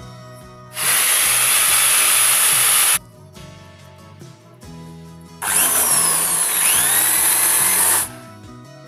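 A handheld power tool running in two bursts of about two seconds each, with a pause between, over quieter background music.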